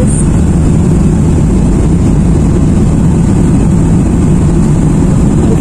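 Airliner's jet engines at takeoff power and the rumble of the takeoff roll, heard from inside the passenger cabin: a loud, steady low rumble.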